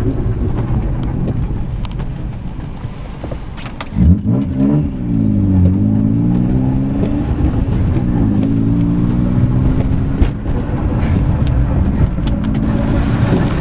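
BMW E36 engine and road noise heard from inside the cabin: a low rolling rumble, then about four seconds in the engine is revved hard under acceleration, its pitch climbing and dropping at two gear changes before settling to a steady cruise.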